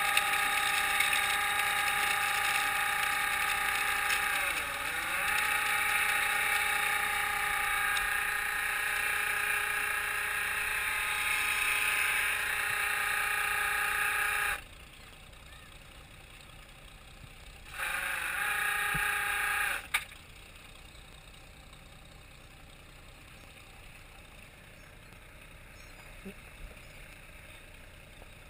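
Hydraulic winch whining steadily as the trawl net and chains pay out over the side, its pitch dipping briefly about five seconds in. It stops about halfway through, runs again for about two seconds, then cuts off with a single knock, leaving the low steady background of the boat at sea.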